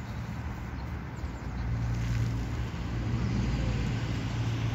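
Low, steady outdoor rumble, growing louder about two seconds in.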